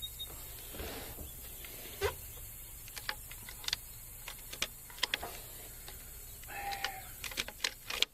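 Outdoor ambience: a steady high insect hiss with scattered short chirps and clicks at irregular intervals.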